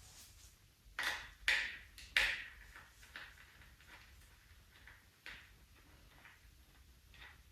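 Three sharp clacks of hard objects knocking together, about half a second apart, each with a short ring, followed later by a few fainter clicks.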